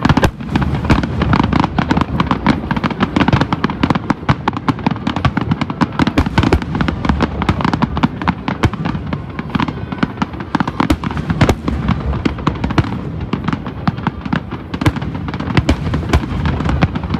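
Aerial fireworks display: a dense, unbroken run of bangs and crackles from many shells bursting, several a second.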